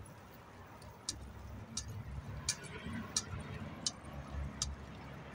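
Bicycle being ridden on pavement, giving a sharp click about every 0.7 seconds in a steady rhythm, six in all, over a low rumble of tyres and wind.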